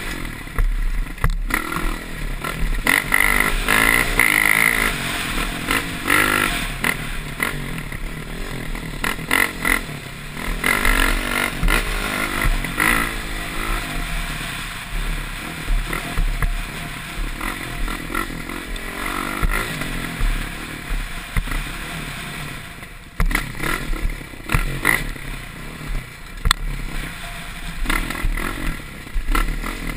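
Dirt bike engine revving up and down hard as it is raced over a rough dirt trail, heard from the rider's helmet camera, with scattered knocks from the bike hitting bumps and stones.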